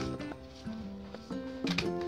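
Instrumental background music, a melody of held notes stepping from one pitch to the next.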